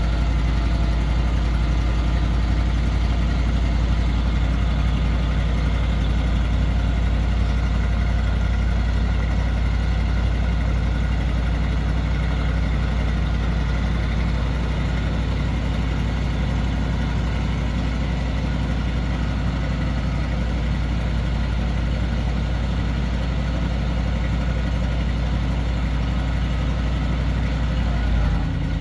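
1978 Chevrolet C65 grain truck's engine idling steadily while it drives the hydraulic hoist raising the grain box, with a brief change in the engine note just before the end.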